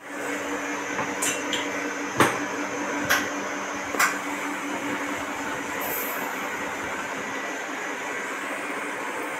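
Steady mechanical hum and hiss of a jewellery wax injector's vacuum pump running. A few sharp clicks and knocks come in the first four seconds, the loudest about two seconds in, as rubber moulds are handled on the bench.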